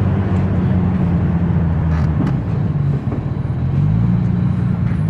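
Freshly rebuilt Toyota 1JZ inline-six pulling under acceleration while driving; its pitch falls and the sound briefly drops off about three seconds in, as at a gear change, then climbs again. It is on a run-in tune, held below 4,000 rpm.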